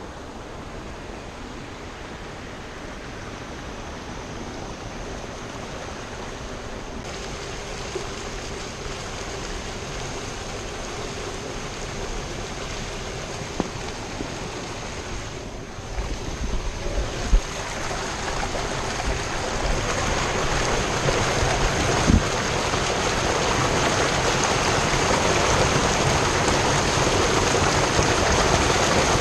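Steady rushing noise of water and wind on the microphone, growing gradually louder, with a few sharp knocks about halfway through and another a little later.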